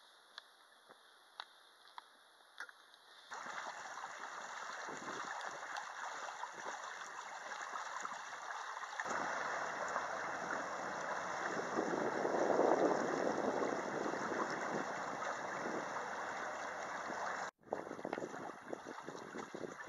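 Water rushing and splashing along the hull of a small sailing proa under way, in several abrupt cuts. The first three seconds hold only faint scattered ticks over quiet water; then the rush comes in suddenly, grows louder with a low steady hum underneath from about nine seconds in, breaks off for an instant near the end and returns choppier.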